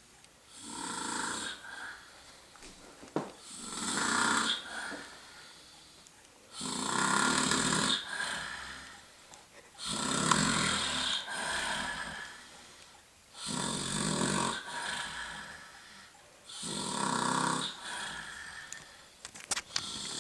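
Heavy snoring in a regular rhythm: six long rasping snores about three seconds apart, with quiet breathing gaps between them.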